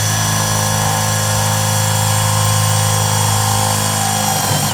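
Power drill running steadily at full speed, boring a ventilation hole through the wooden wall of a beehive super; the motor stops near the end.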